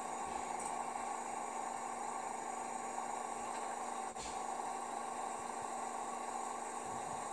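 Bosch Serie 8 front-loading washing machine running with a steady hum and hiss, its drum holding water; a brief click about four seconds in.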